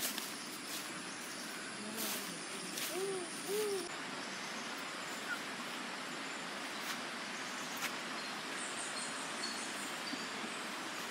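A dove cooing: two short, soft, arched coos about half a second apart, roughly three seconds in, over a steady background hiss. A few faint clicks come in the first few seconds.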